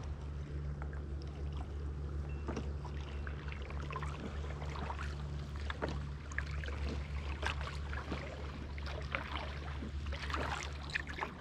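Sea kayak being paddled on flat water: irregular splashes and drips as the paddle blades dip and lift, strongest near the end, over a steady low hum.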